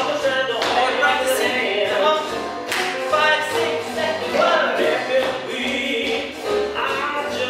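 Swing jazz recording with singing over a steady beat.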